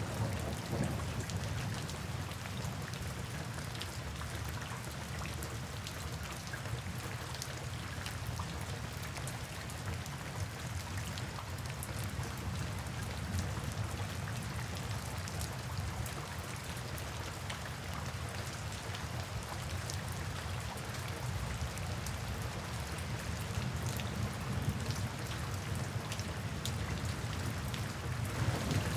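Steady summer rain falling, with many small sharp drop ticks over an even hiss and a low rumble underneath that swells slightly near the end.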